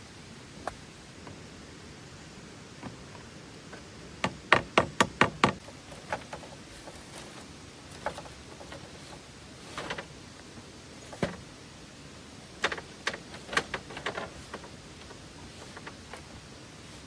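A series of sharp wooden-sounding knocks and taps over a steady faint hiss. There is a quick run of about six knocks a little over four seconds in, a second cluster near the thirteen-second mark, and single knocks in between.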